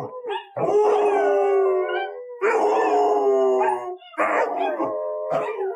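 A dog howling: three long howls in a row, each holding steady or drifting slightly down in pitch.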